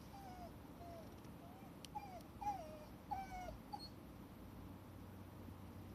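Shiba Inu whining: a string of about eight short, high whines, each falling in pitch, over the first four seconds, then it stops.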